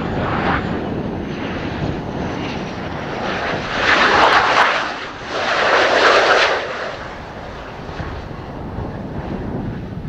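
F/A-18C Hornet's twin jet engines on landing approach: the engine noise swells as the jet passes close, peaks twice between about four and seven seconds in, then eases off as it rolls away down the runway. Wind buffets the microphone with a low rumble throughout.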